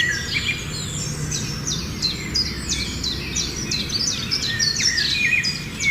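Several small birds chirping continuously, with many short, high, overlapping calls, most of them quick downward-sweeping notes, over a steady low rumble.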